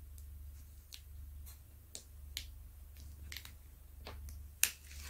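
Scattered small clicks and light rustles of hands handling a diamond painting canvas and its paper release sheet, with a sharper click about four and a half seconds in, over a low steady hum.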